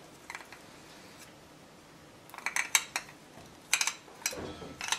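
Metal spoon scraping and clinking against a glass bowl as melted chocolate is scraped out of it, in short scattered clinks that bunch together about halfway through and again near the end.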